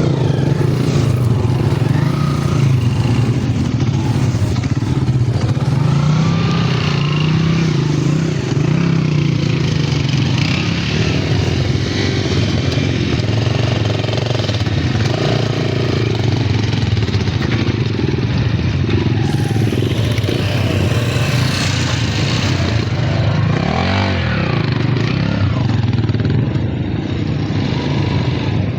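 Vehicle engine running steadily under way, its pitch wavering with the throttle, with a brief drop and recovery in engine note about 24 seconds in.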